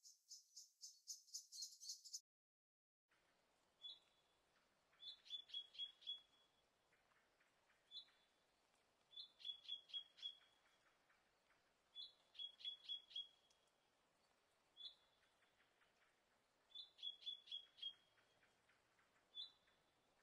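Faint birdsong. First comes a quick run of high chirps. After a short break, a song repeats every few seconds: a single note, then a fast run of about five notes.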